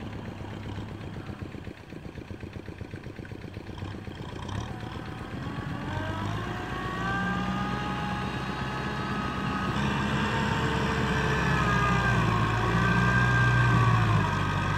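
Farm tractor engine running under load, getting steadily louder as it comes closer, its note wavering up and down in the second half.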